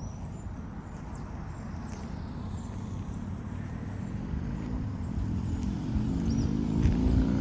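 Honda Shadow 600's V-twin engine rumbling through its exhaust, growing steadily louder, its note becoming clearer over the last few seconds.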